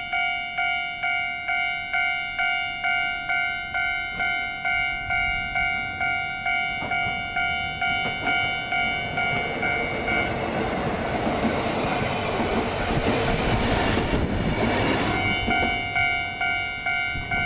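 Railway level-crossing warning bell ringing steadily, about one ding every 0.8 seconds. A Yoro Railway 600 series electric train runs through the crossing, its noise building from about nine seconds in and drowning the bell for several seconds. The train dies away about fifteen seconds in, leaving the bell still ringing.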